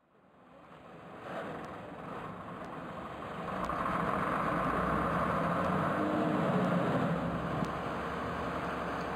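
Mobile crane truck's diesel engine running steadily, fading in from silence and growing louder about three and a half seconds in.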